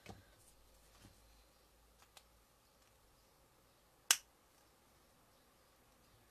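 A few faint light ticks, then one sharp click about four seconds in, from an alcohol marker pen being handled while colouring.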